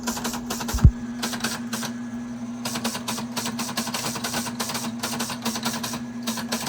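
Teletype Model 33 KSR printing characters: a rapid, uneven clatter of print strokes over the steady hum of its running motor. A single low thump about a second in.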